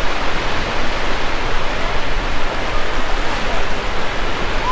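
Steady rushing noise of wind blowing across the microphone, mixed with surf washing onto the beach.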